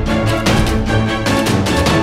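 Music with a steady beat of about four hits a second over held low notes.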